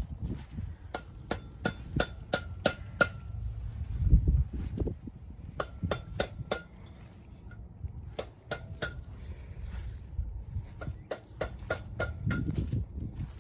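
Sharp metal-on-metal hammer taps that ring briefly, coming in irregular bursts of several strikes, as a camper trailer's wheel hub is knocked apart to get the bearings out.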